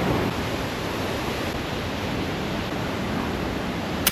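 Steady rushing of a river and waterfall, an even roar of water.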